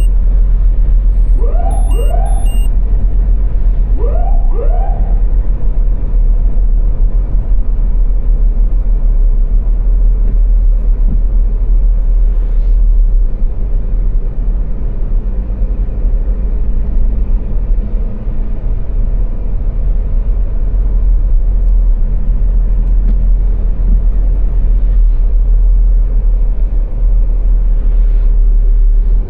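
Steady, loud low road-and-engine rumble of a car driving at motorway speed. Twice in the first five seconds, a quick pair of short rising tones sounds over it.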